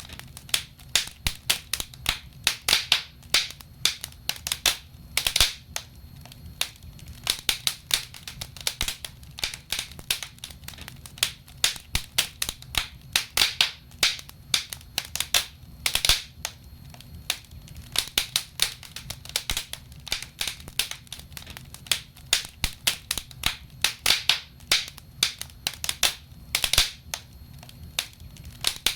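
Wood logs burning in a fireplace, crackling with many sharp, irregular snaps and pops.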